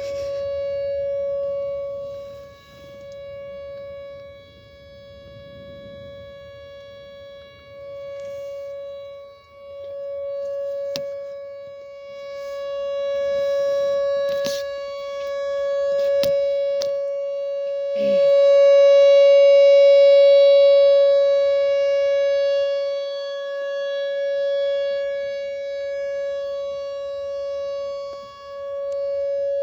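Whelen WPS 4004 electronic outdoor warning siren sounding its Alert signal: one steady tone at a constant pitch, swelling and fading every few seconds. A few faint clicks are heard along with it.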